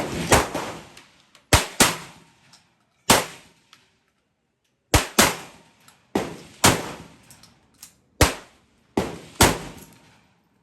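TR Imports SC-122 Tactical 12-gauge shotgun firing buckshot: about a dozen sharp shots with gaps of up to two seconds, several fired in quick pairs a fraction of a second apart, each followed by a short echoing tail.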